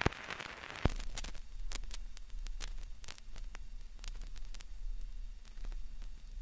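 Crackling static: a steady hiss with a low hum, broken by irregular sharp clicks, one louder click about a second in.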